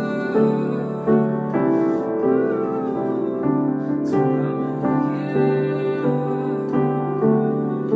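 Digital piano playing slow, sustained ballad chords that change about once a second.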